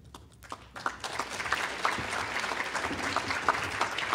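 Audience applauding: a few scattered claps at first, building about a second in to full, steady applause from many hands.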